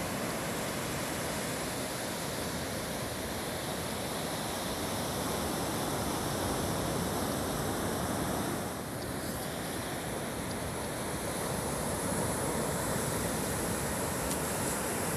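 Steady wash of surf on a beach, with some wind, an even noise without bird calls or voices.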